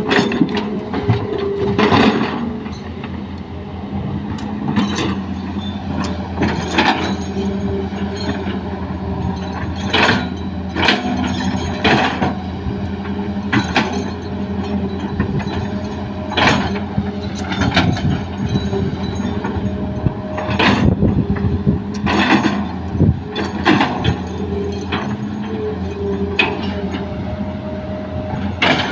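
A Hitachi hydraulic excavator working as it loads soil into a dump truck: its engine runs steadily, with a tone that shifts up and down, under irregular sharp clanks and knocks every second or two.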